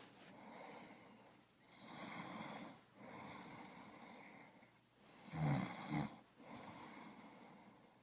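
A person breathing slowly and heavily, several breaths in a row, with a loud rattling snore about five and a half seconds in.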